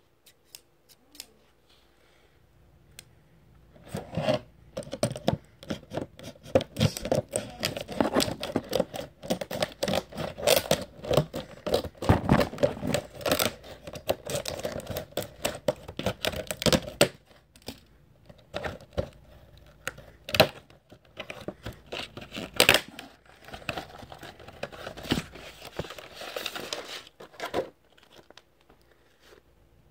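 Stiff clear plastic packaging of an action figure being cut, torn and pulled open by hand: crinkling and crackling with many sharp snaps. It starts a few seconds in and comes in spurts, with a brief lull partway through.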